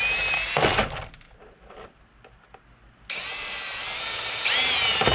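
Power drill with a 5/32 bit drilling out rivets in a plastic airbox cover. It runs and stops just before a second in, a few small clicks follow in the pause, then it starts again about three seconds in, and its whine shifts in pitch near the end as the bit bites into the next rivet.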